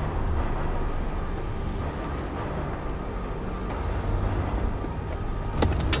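City street ambience: a steady low traffic rumble with faint scattered clicks, and one sharp click near the end.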